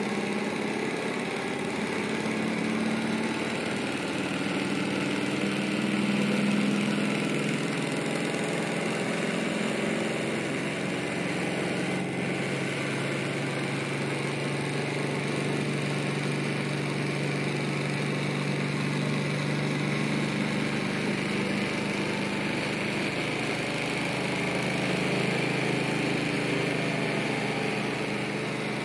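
Model alpha-type Stirling engine running steadily, a mechanical hum whose pitch wanders a little, over the steady hiss of its alcohol burner.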